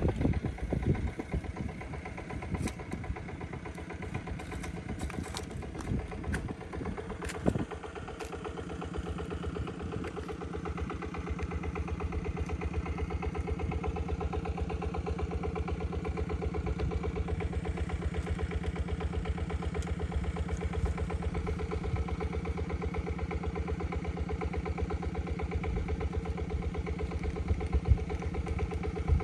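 A small engine with irregular knocks and clatter over its first several seconds, then running steadily with an even, fast beat.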